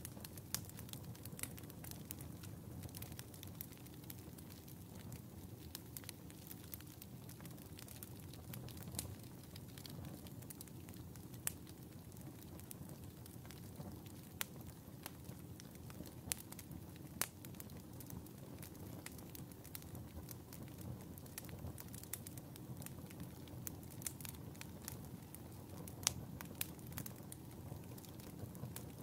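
Wood fire burning in a fireplace: a low steady rumble of flames with frequent sharp crackles and pops at irregular moments, a few louder pops standing out.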